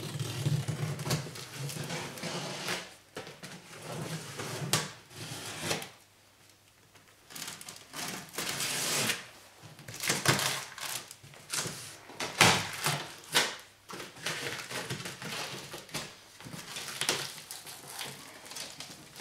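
A small knife slitting the packing tape along the top seam of a large cardboard shipping box, then the cardboard flaps being pulled apart and folded open, with irregular scraping, rustling and knocks. There is a short pause about six seconds in.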